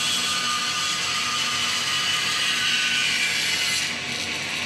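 Band saw with a thin curve-cutting blade cutting a solid-wood board fed by hand: a steady whirring hiss that eases a little near the end.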